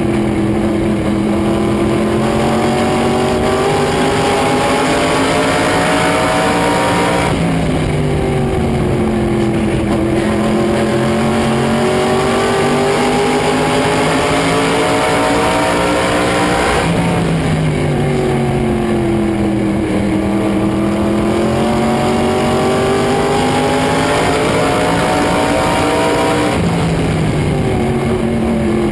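Race car engine running hard laps around an oval, its pitch falling as it slows for the turns and climbing again as it accelerates down the straights, in repeated cycles of about ten seconds.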